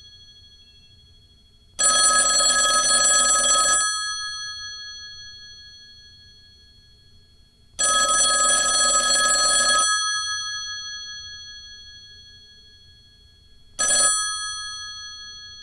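Old telephone's mechanical bell ringing in two-second rings about six seconds apart, the bell tones ringing on and fading away between rings. A third ring near the end is cut off after a fraction of a second.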